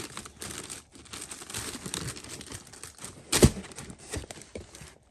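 Paper crinkling and rustling as a new pair of sneakers is handled in its box, with one sharp knock about three and a half seconds in.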